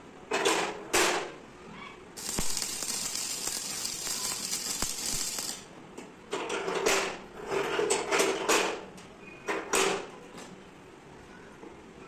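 Stick (arc) welding a steel latch onto a steel door: a short burst of arc crackle, then a steady hissing weld of about three seconds, followed by several shorter bursts of noise in the second half.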